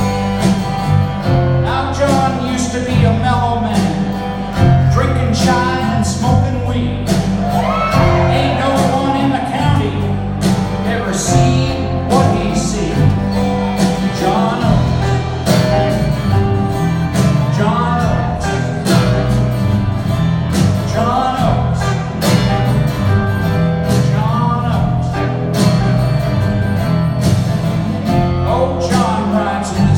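Live rock band playing a song: a male lead vocal over strummed acoustic guitar, electric guitars, bass, a drum kit and congas, recorded from the audience.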